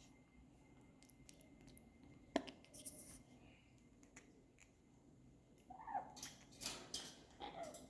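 A pet making short, odd squeaky noises twice near the end, among soft clicks and rustling, with one sharp click a couple of seconds in.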